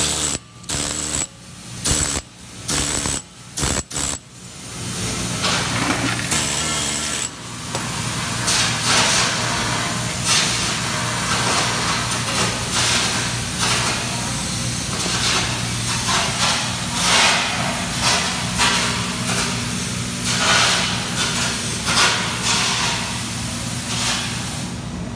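Pneumatic needle scaler chattering against a steel weld in several short trigger bursts, clearing slag from the fillet welds. After about four seconds it stops and a steady machine hum with hiss carries on.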